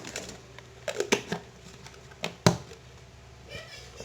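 A few short, light knocks and clicks of kitchen utensils and containers being handled while seasoning is added to the corn mixture, the sharpest about two and a half seconds in.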